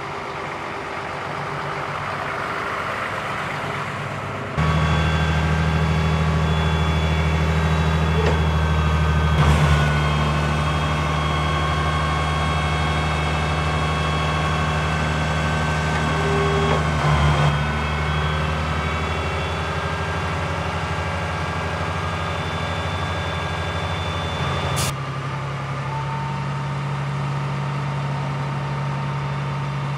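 Scania G 82 M turntable-ladder fire truck's diesel engine running steadily while the ladder and outrigger hydraulics are worked. It steps up to a heavier, louder drone about four and a half seconds in, with a steady whine over it, and drops back a little after a sharp click about five seconds before the end.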